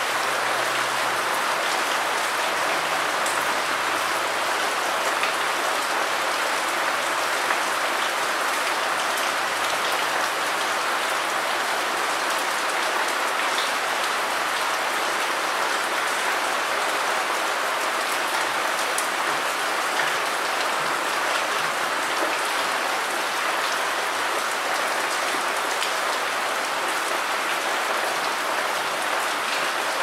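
Steady rain falling on wet ground and surfaces, an even hiss with scattered faint drop ticks.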